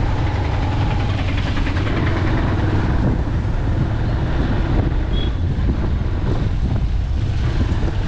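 A motorcycle on the move: a steady low rumble of engine and wind on the microphone at riding speed.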